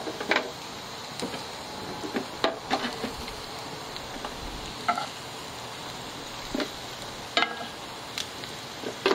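Onions and butter sizzling in a cast iron skillet, a steady hiss. About seven scattered clinks and scrapes come from metal tongs and a spoon as the onions are lifted into a disposable aluminium foil pan.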